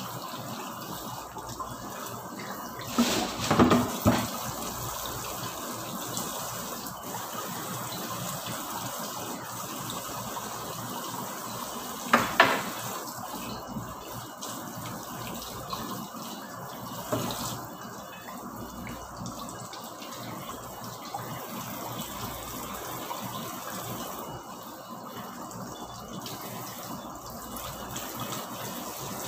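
Kitchen tap running steadily into the sink while a fish is rinsed and handled under the stream. Louder moments come about three seconds in, again near twelve seconds and briefly around seventeen seconds.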